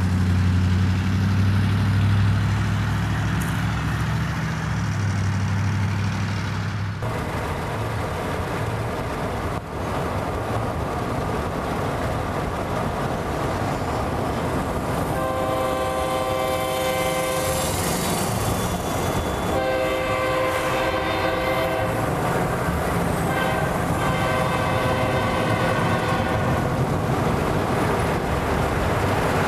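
A train horn sounds three long blasts, each several seconds, over the steady rumble of a moving train. Before the horn there is a low steady drone.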